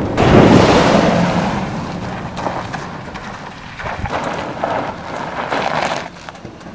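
SUVs driving fast on a dirt road: a loud rush of engine and tyres on dirt about a second in that fades away, then a few weaker passing swells.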